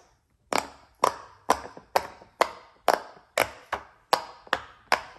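Silicone Pop-It fidget toy being popped bubble by bubble: a steady run of about ten sharp pops, roughly two a second.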